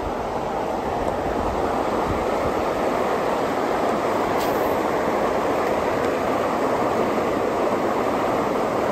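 Steady rushing of floodwater pouring over a dam: a constant, even whitewater noise with no breaks.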